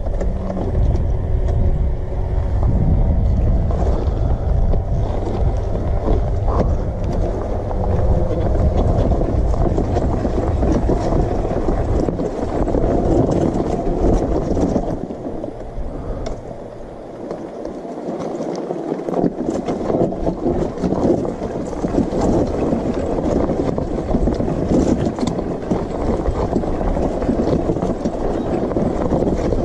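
Suzuki dirt bike engine running as it rides over a rocky gravel trail, heard from a helmet camera with wind rush and rattling clatter from the rough ground. The low rumble eases off briefly a little past halfway, then picks up again.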